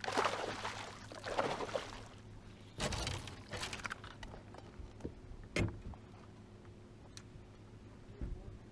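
Two bursts of water splashing and handling noise, then a sharp knock about halfway through and a few lighter clicks, over a steady low hum.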